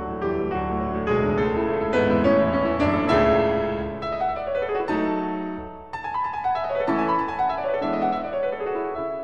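Background piano music, slow and gentle, with single notes and chords ringing and fading.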